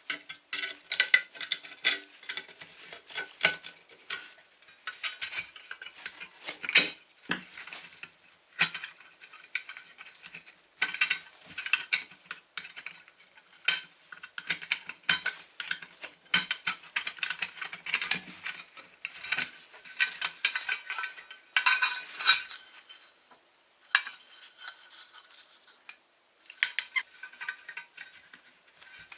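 Metal clinking, scraping and tapping as a pressed-steel toy truck is taken apart with hand tools: irregular sharp clicks with a light metallic ring, with short pauses around a quarter of the way in and near the end.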